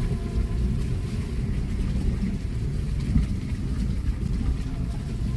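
Car engine and road noise heard from inside the cabin: a steady low rumble as the car drives over a rough, muddy dirt road.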